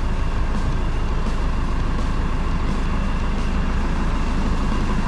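Heavy diesel engine running at a steady idle, a constant low rumble.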